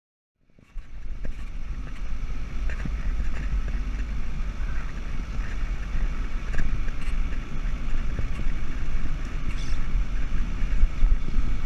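Vehicle driving along a bumpy dirt track, heard from a camera on its bonnet: steady road and running noise under heavy wind rumble on the microphone, starting about half a second in.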